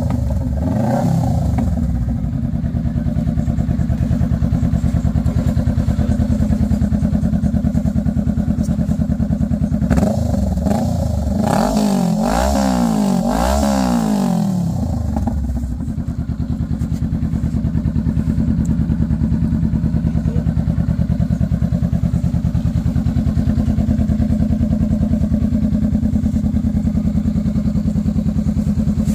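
Honda Rebel 500's parallel-twin engine running through new aftermarket Von and Hans mufflers, mostly at a steady idle. The throttle is blipped once at the very start and in a quick run of several revs from about ten to fifteen seconds in, each rising and falling back to idle.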